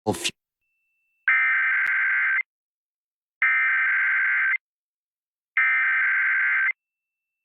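Emergency Alert System SAME header: three identical bursts of digital data tones, each about a second long and a second apart. A brief crackle comes at the very start.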